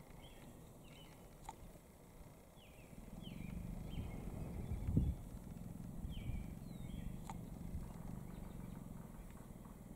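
Outdoor field ambience: short high chirps repeat every second or so over a faint hush. A low rumble comes in about three seconds in, with a single thump near the middle.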